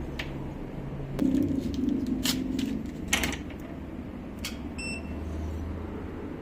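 Steady low hum with a few sharp clicks, then a short electronic beep about five seconds in.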